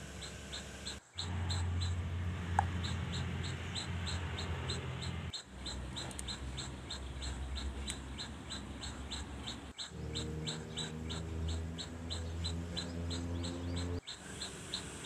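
Steady, regular high-pitched chirping, about four chirps a second, over a low rumble. The sound drops out for a moment three times, each time the shot changes.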